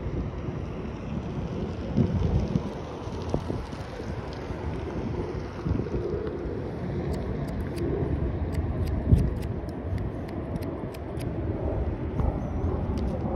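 Wind buffeting the microphone over a low rumble of passing traffic. From about seven to eleven seconds in, a quick run of light, sharp clicks.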